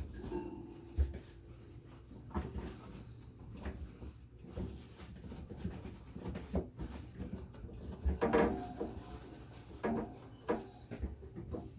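Refrigerator trays and shelves being slid and set back into place in the fridge: scattered knocks and clatters, with a longer scraping rattle about eight seconds in.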